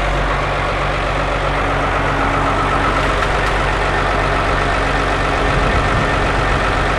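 An engine idling steadily, with a low even hum, while a crane lifts the ram out of the car hoist.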